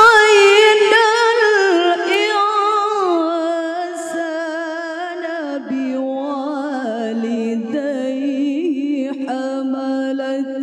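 A woman reciting the Quran in the melodic tilawah style into a microphone, holding long ornamented notes with a fine vibrato that step downward in pitch, then starting a lower phrase about halfway through.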